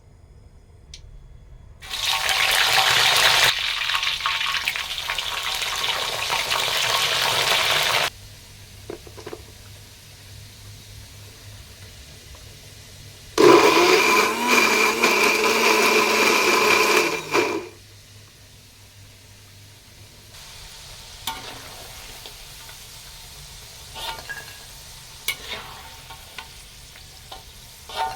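Home-kitchen cooking sounds. A loud rushing noise runs for about six seconds, stops, then a second loud burst of about four seconds follows, with a motor-like whine that rises as it starts, much like a blender. After that come faint scattered clinks and ticks of kitchen work.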